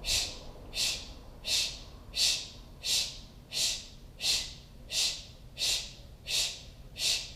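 Kapalabhati breathing through the mouth: a steady series of short, forceful "shh" exhalations, about eleven in a row at roughly one every 0.7 seconds. Each puff is an active exhale driven by the belly snapping in; the inhales between them are passive and silent.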